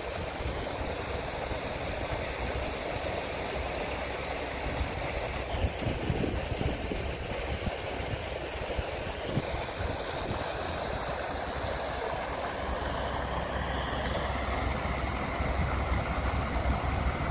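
Tractor engine running steadily as heard from inside the cab while driving, with a low rumble and the hiss of tyres on a wet track. The engine note rises slightly over the last few seconds.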